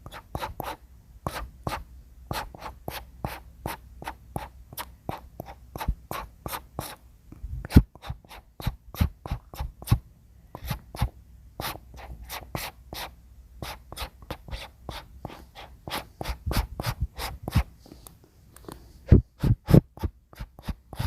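Brush strokes scraping over wood: a long run of quick, short strokes, about two or three a second with brief pauses, a few of them sharper and louder.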